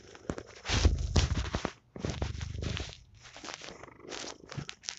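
Domestic cat purring close to the microphone in a rhythmic in-and-out cycle. Two loud phases come in the first three seconds, then the purr goes softer.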